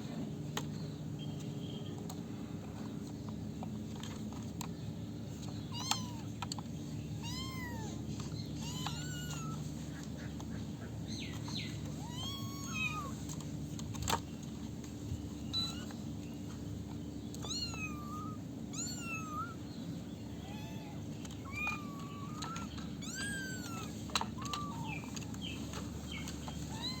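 Kittens meowing again and again: short, high-pitched calls that rise and fall, coming thicker and sometimes overlapping from about six seconds in. A steady low hum runs beneath, and there are a couple of sharp clicks.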